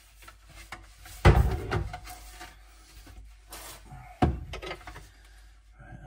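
Kitchen cupboard door being handled and fitted to its hinges: the door knocks against the cupboard, loudest about a second in and again about four seconds in, with lighter knocks and rubbing between.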